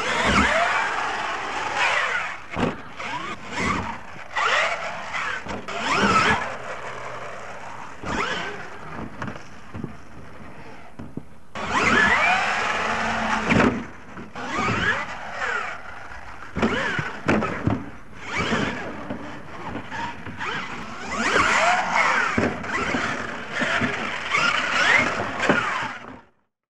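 Radio-controlled monster truck's electric motor whining up and down in pitch as the throttle is worked, with tyres spinning and throwing dirt, in repeated surges with short lulls between. The sound cuts off suddenly near the end.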